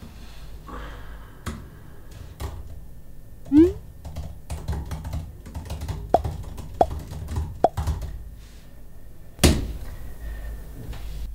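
Small sounds at a desk: scattered taps and clicks over a low room hum, a short rising whoosh about three and a half seconds in, three sharp clicks with a brief tone a little later, and a heavy thump near the end.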